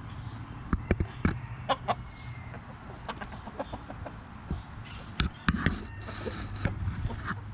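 Backyard chickens clucking in short scattered calls, several in quick succession about a second in and again around five seconds in.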